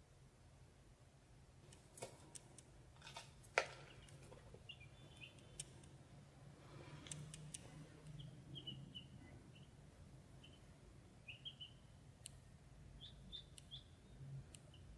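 Ducklings peeping softly, a scatter of short high chirps through the second half, with a few sharp clicks and taps about two to four seconds in.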